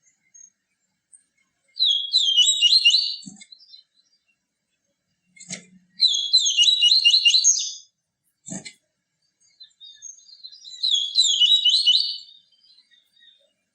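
Papa-capim seedeater singing three rapid, twittering song phrases of about two seconds each, a few seconds apart, with three faint short knocks between the phrases.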